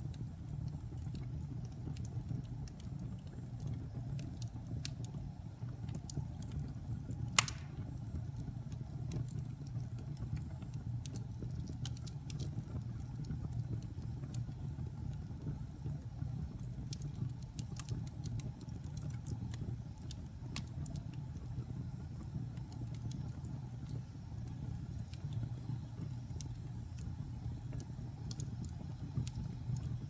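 Wood fire burning in a fireplace: a steady low rumble with scattered small crackles and one sharper pop about seven seconds in.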